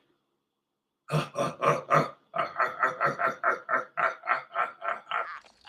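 A man's impression of Tim Allen's signature grunting noise: a fast run of short, throaty vocal grunts, about four or five a second, starting about a second in and running for around four seconds.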